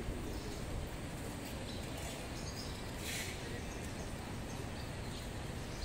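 Swallows twittering faintly in short high chirps over a steady low rumble of city background noise, with a brief hiss about three seconds in.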